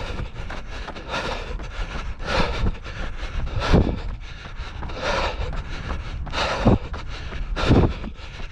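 A trail runner breathing hard in a steady rhythm, about one breath every second and a quarter, with occasional thuds of footfalls or knocks on the body-worn microphone. Wind rumbles on the microphone underneath.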